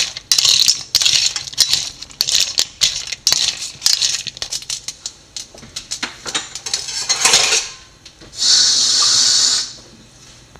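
Crab pieces in their shells and chopped coconut being tossed by hand in a steel pot: shells clattering and clinking against the steel in quick, irregular clicks, which stop about seven and a half seconds in. Near the end comes a steady hiss lasting about a second and a half.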